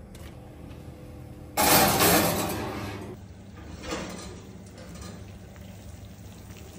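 A sudden loud scrape and clatter of kitchenware about one and a half seconds in, fading over a second or so, then a lighter knock near four seconds.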